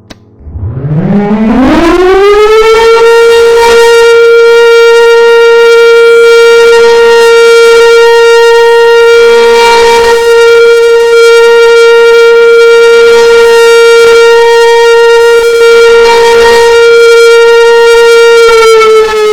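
Siren winding up from a low growl to a steady high tone within about two and a half seconds. It holds that single tone, then starts to wind down near the end.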